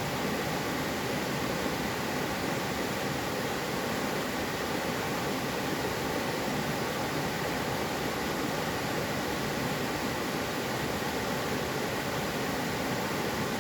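Mountain valley stream flowing, a steady even rush of water.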